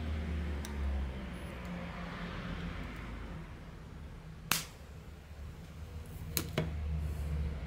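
Sharp crack of a homemade capacitor-bank spot welder discharging through copper electrodes into a thin metal strip, about halfway through, followed near the end by two smaller snaps close together.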